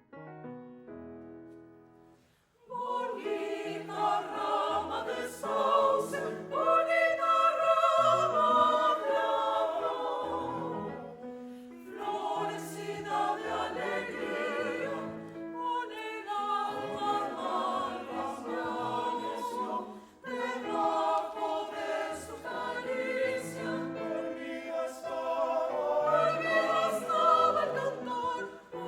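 Choir singing with piano accompaniment. A few piano notes sound alone at first, then the choir comes in about three seconds in and sings in phrases, with short breaths between them.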